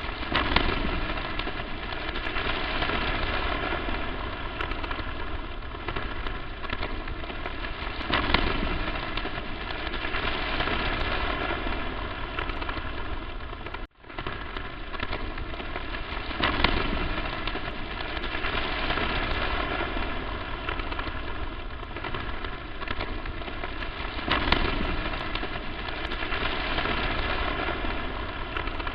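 Electrical static noise: a dense, steady crackle and hiss with faint steady tones running through it. It swells louder about every eight seconds and cuts out for an instant about halfway through.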